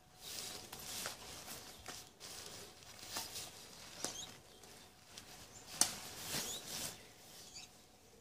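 Nylon fabric of a pop-up shower tent rustling in irregular strokes as it is twisted and folded down, with a sharp click about two-thirds of the way in.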